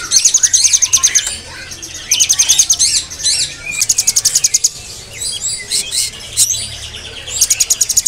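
Caged songbirds singing: loud bursts of rapid, evenly repeated high notes, about a dozen or more a second, several times over, mixed with shorter chirps and whistled glides.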